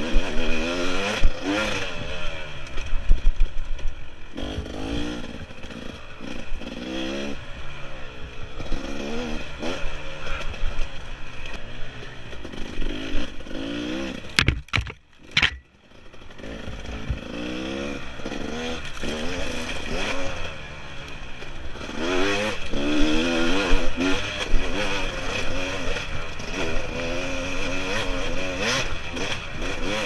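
Off-road dirt bike engine heard from the rider's helmet camera, revving up and falling back again and again as the rider works the throttle and gears along a trail. About halfway through the sound cuts out for roughly a second, with a few sharp clicks, before the engine comes back.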